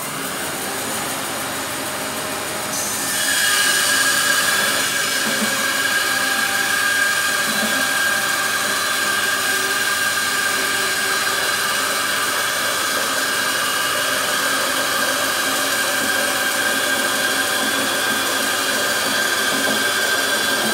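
Laguna bandsaw running, its blade going into a thick block of wood about three seconds in and cutting steadily through it, with a high, steady whine over the cutting noise.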